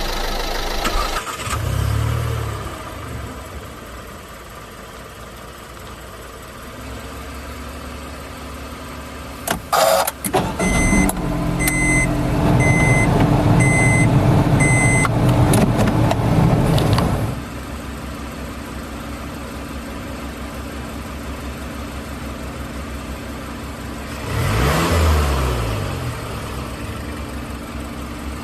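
Engine sounds of miniature construction vehicles (toy trucks and an excavator) running steadily. About ten seconds in there are a few sharp knocks as an engine starts and runs louder, with a run of about five short, evenly spaced reversing-alarm beeps; a brief rise in engine sound comes near the end.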